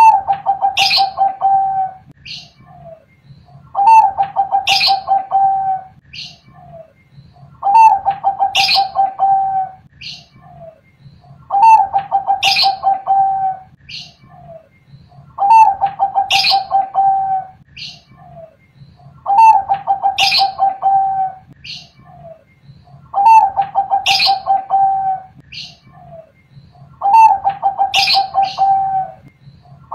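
Bangkok-strain zebra dove (perkutut) cooing its song phrase over and over, about once every four seconds: a short opening note, then a long, rolling, wavering coo.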